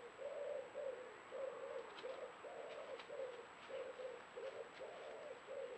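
A pigeon cooing: a quick run of short, low notes, about two a second.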